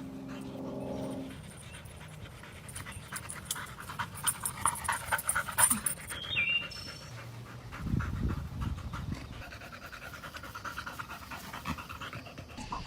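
Dog panting in quick, rhythmic breaths, with a few short high-pitched sounds around six seconds in.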